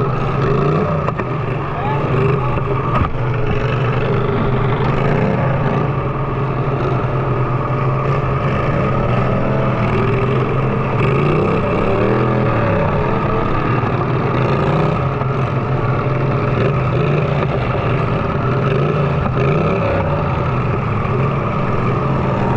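Riding lawn mower engines running and revving during a lawnmower derby, with voices in the background and a sharp knock about three seconds in.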